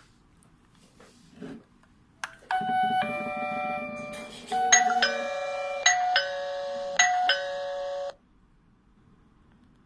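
A click, then a video doorbell's electronic chime playing a melody of ringing notes for about six seconds before cutting off suddenly.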